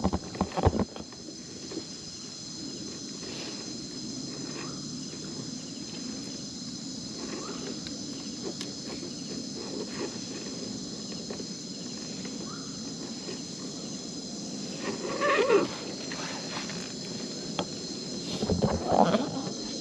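Steady insect chorus of crickets or cicadas, several high steady tones held throughout, over a low background hiss. Two short louder sounds break through, about 15 seconds in and again near the end.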